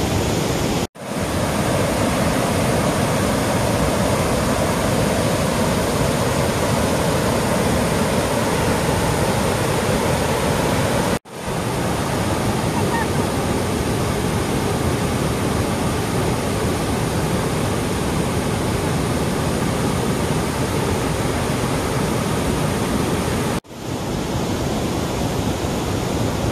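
Waterfall cascading over rock ledges: a loud, steady rush of falling water, cut off for an instant three times.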